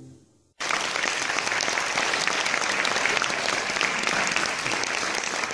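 The last harp chord dies away, and about half a second in an audience suddenly breaks into steady applause that carries on.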